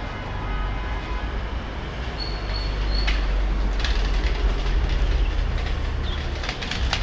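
Busy street noise: a steady low rumble under a noisy hiss, with clattering in the second half.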